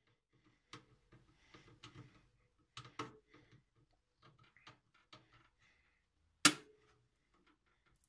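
A screwdriver driving screws that fix an SSD caddy into a PC case's steel drive bay: scattered small metal clicks and scrapes, with one sharp clack about six and a half seconds in.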